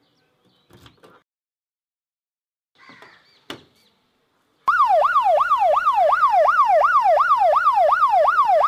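Faint clicks and a knock as a key works the car door lock and the door is opened, then an electronic siren starts suddenly about halfway through: a loud, fast yelp sweeping up and down about three times a second.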